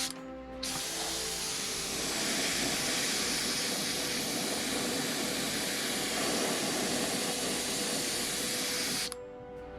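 Paint sprayer hissing steadily for about eight seconds, starting about a second in and cutting off sharply near the end, with a brief spray right at the start. Background music plays underneath.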